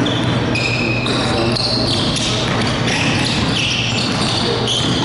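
Basketball being dribbled on a hardwood gym floor, with sneakers squeaking in many short, high chirps as players cut and defend. A steady low hum runs underneath.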